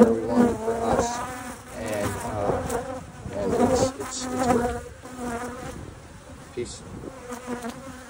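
Honey bees buzzing around an open hive and its brood comb, with single bees flying close past so the buzz swells and wavers in pitch. The buzz is loudest in the first half and eases off after about five seconds.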